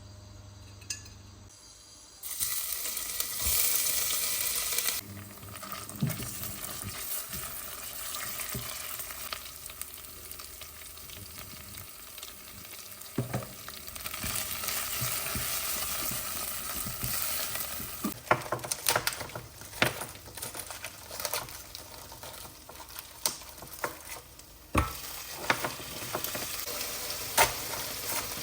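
Food sizzling as it fries in a hot pan, starting suddenly about two seconds in and loudest for the next few seconds. It is stirred with a utensil that clicks and taps against the pan several times in the second half.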